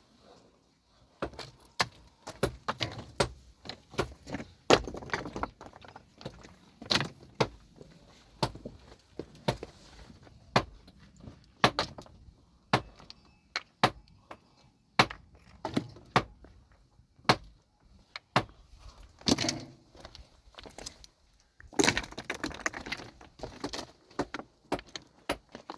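Irregular clattering knocks and clicks of hard objects striking one another, several a second at times, with a few longer scraping stretches.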